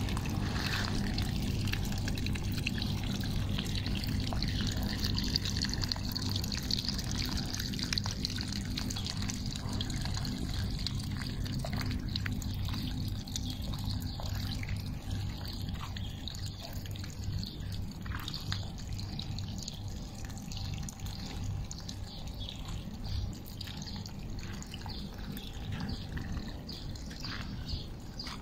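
Water running from a garden hose and pouring onto garden soil and plants, a steady trickle over a steady low hum.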